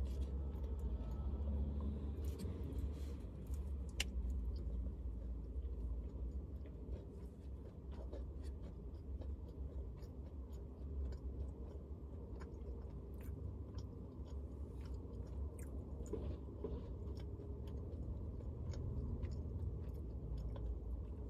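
A person chewing and biting food in a car cabin, with scattered small clicks and a steady low hum underneath.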